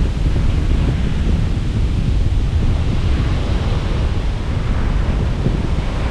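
Strong wind buffeting the microphone with a steady low rumble, over the wash of breaking ocean surf.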